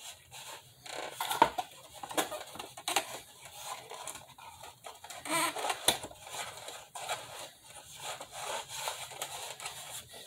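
Cardboard packaging being handled: irregular rubbing, scraping and small clicks as the fasteners holding the toy to the box are twisted loose, with a couple of sharper clicks.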